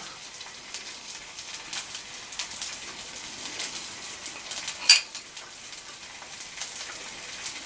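Chicken frying in a pan, a steady sizzle with small crackles. A single sharp click about five seconds in.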